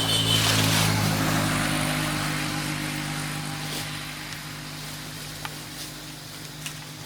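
A motor vehicle's engine passing by: a steady low hum that is loudest about a second in, then slowly fades away.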